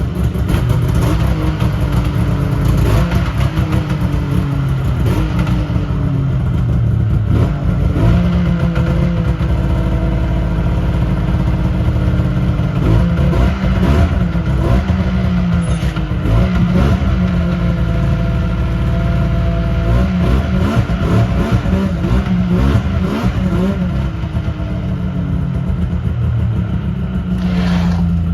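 Yamaha V-Max three-cylinder two-stroke snowmobile engine running, its pitch rising and falling as it is revved up and down again and again.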